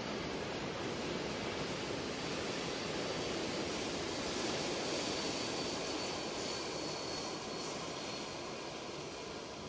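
Lockheed C-5M Super Galaxy's four General Electric CF6-80C2 (F138) turbofans running as it taxis past: a steady jet roar with a thin high whine, easing off slightly near the end.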